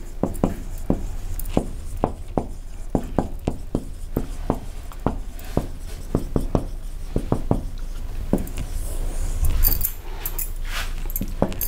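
Marker pen writing on a whiteboard: an irregular run of short taps and scratches, two or three a second, with a brighter, scratchier stretch near the end.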